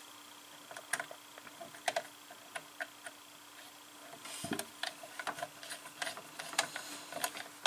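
Irregular small clicks and taps of control wires being handled and pushed into place at the terminal blocks of a CNC controller board, over a faint steady hum.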